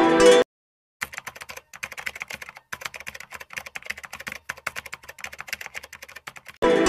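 Computer-keyboard typing sound effect: rapid, irregular key clicks, in time with on-screen text being typed out. Background music cuts off about half a second in, before the clicks start, and comes back just before the end.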